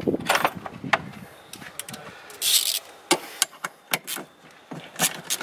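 Scattered clicks and knocks with a short rustle from a gloved hand handling hoses and plastic connectors in a car's engine bay.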